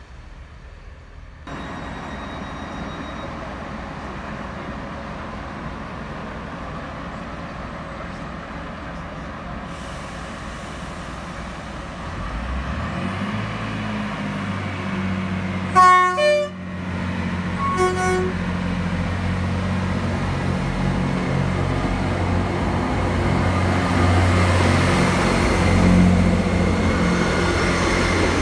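British Rail Class 158 diesel multiple unit approaching on its underfloor diesel engines, the drone growing louder as it nears. The horn is sounded twice, about two seconds apart, the first blast longer and the loudest sound. The engines run on as the train draws alongside the platform.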